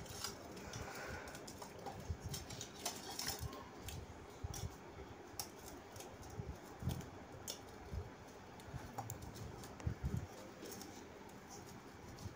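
Fork mashing ripe bananas in a stainless steel bowl: faint, irregular clicks and scrapes of the tines against the metal.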